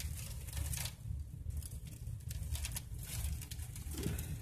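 Pea-sized hail falling, heard as scattered sharp ticks at irregular spacing, over a steady low rumble.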